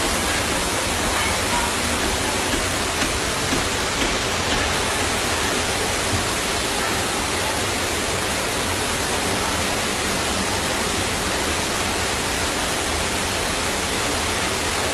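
Steady, unbroken rush of floodwater flowing along a flooded street.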